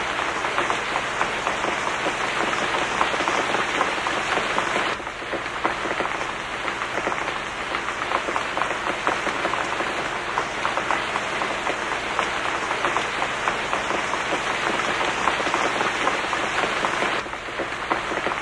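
Steady rain falling, a dense patter of drops, dipping slightly in level about five seconds in and again near the end.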